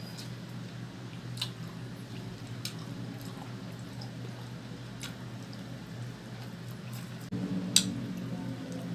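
Close-miked chewing and wet mouth sounds of someone eating chicken, with a few sharp clicks, the loudest near the end, over a steady low hum.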